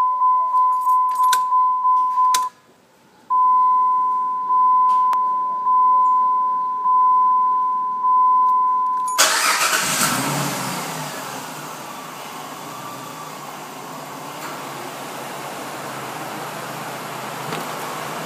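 Jeep Liberty's dashboard warning chime beeping, quickly at first, then after a short pause in slower beeps about once a second. About nine seconds in, the engine starts with a sudden burst and settles into a steady idle.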